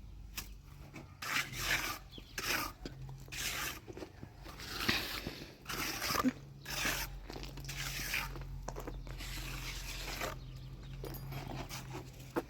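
Repeated scraping or rubbing strokes, roughly one a second, over a steady low hum.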